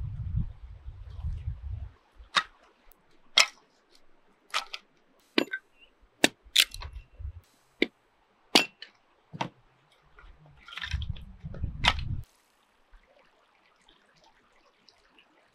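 A hatchet chopping kindling from split firewood: about ten sharp cracks, roughly one a second, as the blade strikes and splits the wood. Dull low thuds of split logs being set down come at the start, and further dull thuds come about eleven seconds in.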